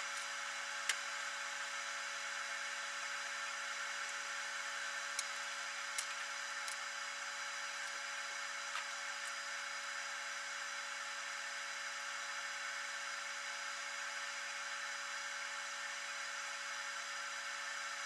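Steady faint hum and hiss of a workshop, with a few faint clicks and ticks of small metal and plastic parts being handled while a digital readout scale is fitted to a mini mill.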